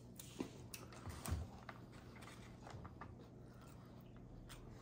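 Faint eating sounds: chewing, with scattered light clicks of a fork in a plastic salad bowl.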